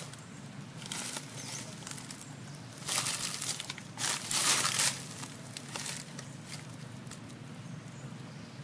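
Dry leaves rustling and crinkling in a few short bursts, the loudest about three seconds in and again about four to five seconds in.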